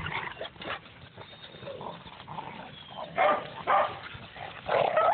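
Dogs barking through a chain-link fence, with three loud barks in the second half.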